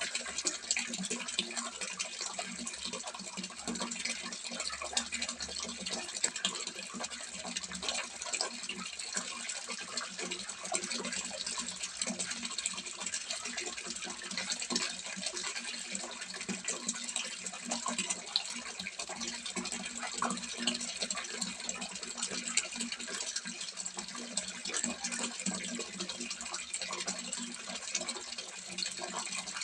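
Water falling from a spout into a small fish pond, splashing and trickling steadily without a break.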